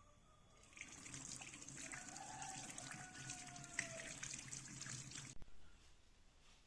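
Water running from a tap as hands are washed under it; it starts about a second in and cuts off suddenly about five seconds in.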